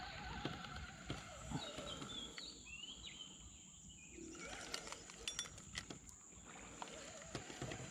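Outdoor nature ambience: a steady high-pitched drone, typical of insects, with short chirping calls about two to three seconds in and a few light knocks.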